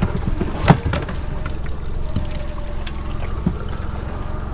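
Steady wind and water noise on an open fiberglass boat at sea, with one sharp knock just under a second in and a few lighter taps.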